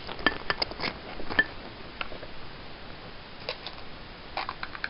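Light clicks and taps of a plastic ketchup bottle being handled, several in the first second and a half and a few more near the end.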